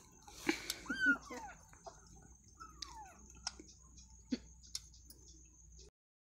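Very young orphaned kitten mewing as it is hand-fed from a small feeding bottle: a high cry that rises and falls about a second in, a fainter falling one near the middle, with scattered small clicks. The sound cuts off suddenly near the end.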